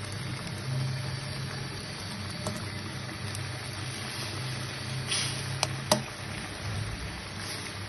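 Mutton qeema simmering in a karahi, with a steady low hum underneath and a few sharp metal clicks as a slotted spatula knocks against the pan, two of them close together about six seconds in.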